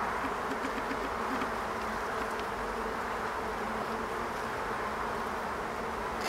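Steady buzz of a honey bee colony over the open frames of a hive, with a few faint ticks and one sharper click near the end.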